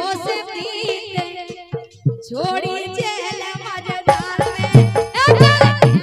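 Live Bundeli folk song: a woman singing a wavering melody over harmonium and a steady drum beat. About four seconds in, the accompaniment gets louder, with heavier drum strokes.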